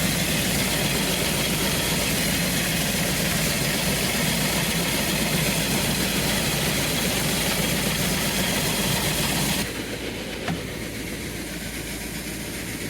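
Tractor engine running steadily while pulling an air-seeder wheat drill. About ten seconds in, the sound drops suddenly to a quieter, steady hum.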